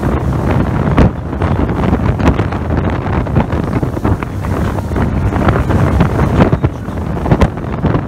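Wind buffeting the microphone aboard a fast-running motorboat at sea, with irregular gusts and thumps, over the rush of water past the hull and the steady drone of the boat's motor.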